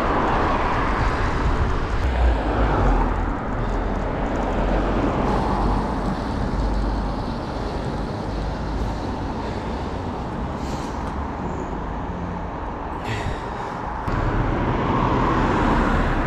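Bicycle being ridden over a rough road surface: steady tyre and road rumble mixed with wind on the microphone, with a couple of brief rattles near the end.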